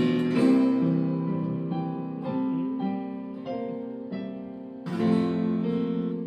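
Acoustic guitar strumming chords with electric keyboard accompaniment, played live; a fresh strummed chord comes in about five seconds in.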